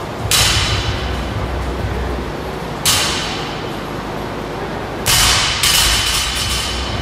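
Loaded barbell with bumper plates clanging on a rubber gym floor: four sharp impacts, each with a ringing decay, the loudest pair about five seconds in as the bar comes down from overhead and bounces.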